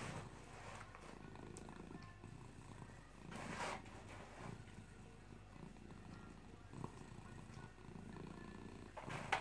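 A cat rummaging in a small cardboard box, with brief scratchy rustles of cardboard about three and a half seconds in and again near the end, over a low rumble.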